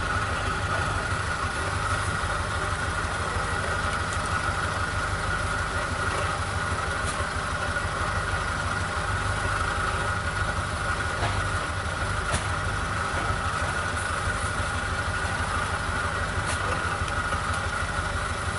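Engine running steadily, a low rumble with a steady whine above it.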